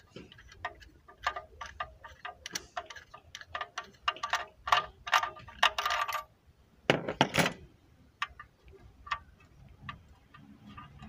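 Irregular rapid clicks and ticks from hands working a spark plug lead and its boot on a Renault 1.4 engine. The clicks are densest for the first six seconds, a louder clattering cluster comes about seven seconds in, and then they thin out.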